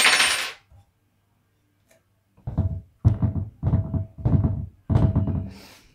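Madd MGP VX8 stunt scooter being pushed down and rocked by its handlebars while it is checked for play in the front end: five dull metal knocks about every 0.6 s, each with a slight ring. A brief rustling clatter comes right at the start.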